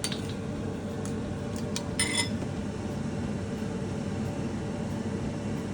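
Steady mechanical hum, with a few light clicks and one short ringing clink about two seconds in, as salt is added to a bowl of beaten egg.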